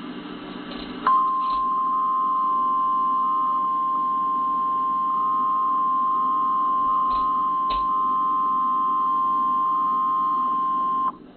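Emergency Alert System attention signal: a loud, steady two-pitch tone near 1 kHz that starts suddenly about a second in and cuts off after about ten seconds, announcing a flash flood warning. A low hum is heard before the tone starts.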